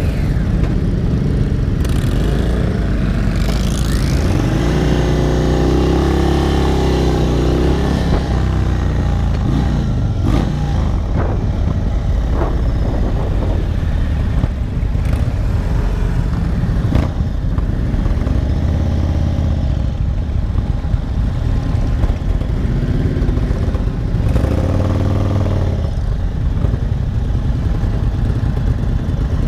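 2022 Indian Chief Dark Horse's Thunderstroke 116 V-twin running as the bike rides along with a group of motorcycles, under a heavy steady rumble. A few seconds in and again near the end the engine note swells and glides up and down with the throttle.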